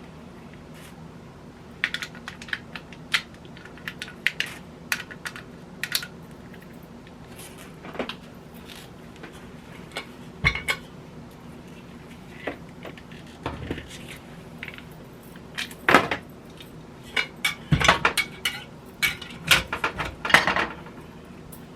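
Irregular clinks, knocks and rattles as a Presto electric kettle's pot, lid and stored power cord are handled and taken apart; the clatter gets busier and louder in the last few seconds.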